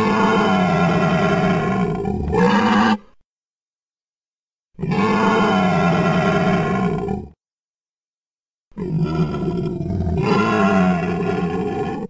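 Euoplocephalus dinosaur sound effect: three long roars, each lasting about three seconds, separated by dead silence.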